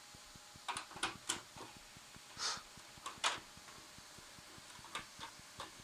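HP LaserJet M104a laser printer running with an irregular clacking: a dozen or so sharp clicks and knocks, bunched in the first half. The repairer takes it for the paper-feed clutch solenoid clacking away all the time.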